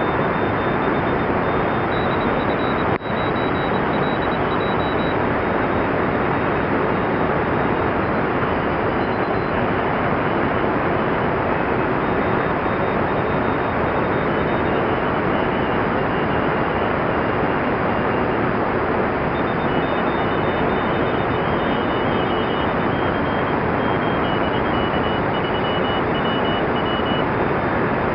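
Shortwave receiver in single-sideband mode tuned to 14024 kHz, in the 20-metre amateur Morse band: a steady, loud rush of band noise with several faint Morse code signals beeping on and off at different high pitches. A brief click and dropout comes about three seconds in.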